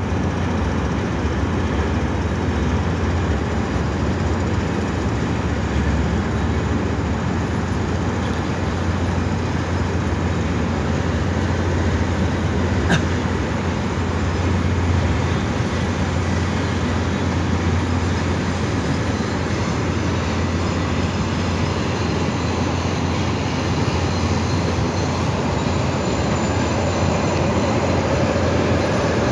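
Long cement freight train rolling slowly past with a steady rumble and deep hum. One sharp click comes about halfway through, and the sound grows a little louder near the end.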